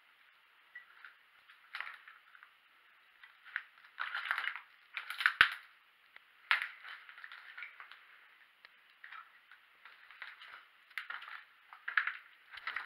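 Slow, irregular footsteps over rubble and debris on the floor of a derelict house, with the loudest step about five seconds in.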